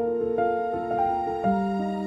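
Slow, gentle background music with held piano or keyboard notes changing every few tenths of a second.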